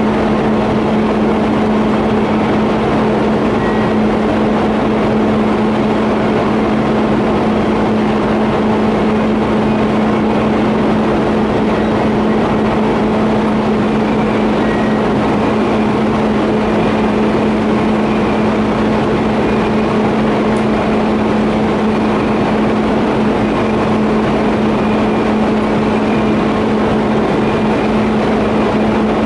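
Steady electrical hum with one strong low tone over an even hiss, from TIG welding equipment during welding of a steel pipe flange and elbow.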